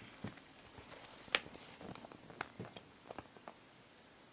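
Faint, scattered clicks and light rustles of a paper magazine being handled and its pages turned, with one sharper click about a second and a half in and another about two and a half seconds in.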